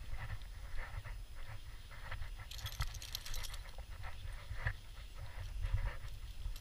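A Welsh Springer Spaniel panting in quick repeated breaths as it walks on a leash, with footsteps on a dirt trail. A brief crackle comes about two and a half seconds in.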